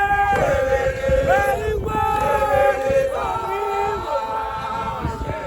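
A group of men singing together in a chant-like song, with long held notes.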